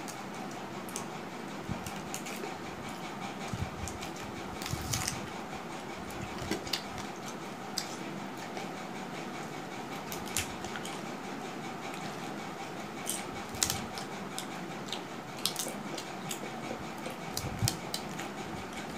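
Eating sounds: crisp papad being snapped and crunched, scattered sharp crackles, with light clinks on steel plates and bowls, over a steady background hiss.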